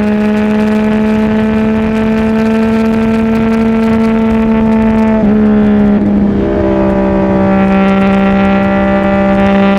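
CFMOTO 675NK's inline-three engine through a titanium full-system exhaust, running at steady high revs with its pitch creeping slightly upward. About five seconds in the note wavers briefly, then it holds steady again.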